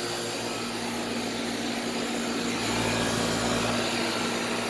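Goodman central air conditioner's outdoor condensing unit running steadily: a low compressor hum under the even rush of the condenser fan.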